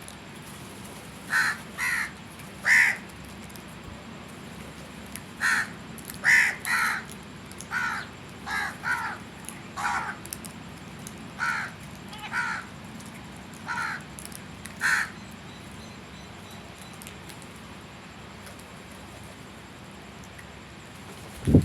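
Crow cawing: a string of about fourteen short caws in two bouts, then a low thump right at the end.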